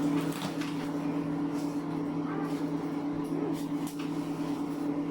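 Steady low mechanical hum in the room, with a few faint clicks and knocks.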